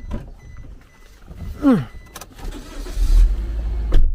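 Car engine running with a low rumble that becomes loud and steady about three seconds in, after a couple of clicks and a short falling tone.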